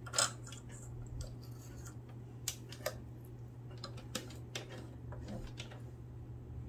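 Scattered small clicks and taps of plastic and metal parts on a Singer sewing machine as the bobbin is loaded and the threads are brought up. The sharpest click comes just after the start, with a few more spaced a second or so apart.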